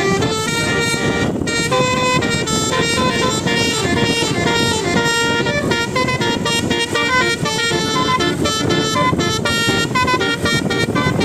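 Bus 'telolet' basuri musical horns playing a quick melody of short, changing notes, over a steady low rumbling noise.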